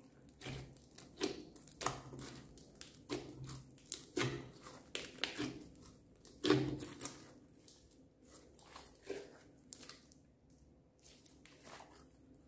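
Hands kneading and squeezing thick slime mixed with sprinkles and glitter, making irregular squishing with sharp sticky clicks and pops. These are dense for the first half and thin out after about seven seconds.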